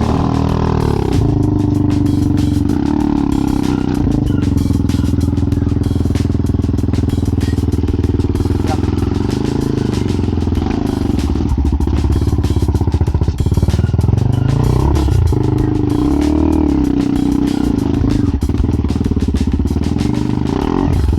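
Dirt bike engine running under load, its pitch rising and falling repeatedly as the throttle is worked.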